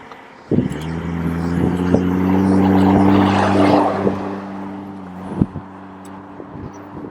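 A motor vehicle driving past: a steady engine hum that starts about half a second in, with road noise that swells to a peak around three seconds and then fades away.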